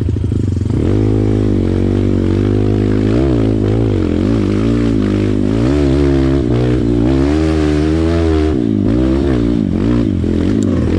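Motorcycle engine running at low revs, then from about a second in revving up and down repeatedly as it rides.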